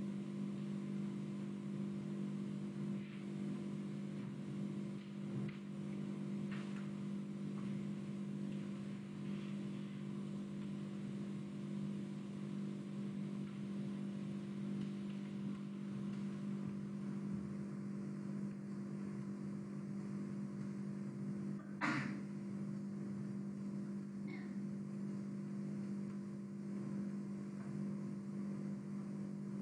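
A steady low hum, with a single sharp click about 22 seconds in.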